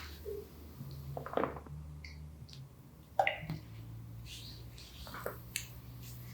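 Hands massaging bare skin: scattered soft rubbing and sliding sounds, with one sharp click about three seconds in, over a faint steady low hum.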